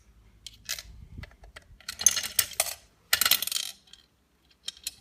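Coins dropping into a toy gumball machine and its small plastic parts clattering: a few light clicks, then two bursts of clinking rattle about two and three seconds in.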